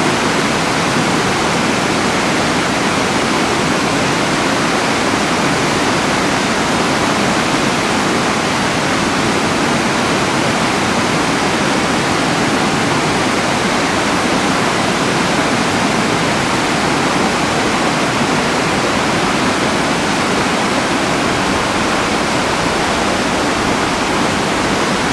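Whitewater of a rocky mountain stream rushing over boulders and ledges: a loud, steady, unbroken rush of water.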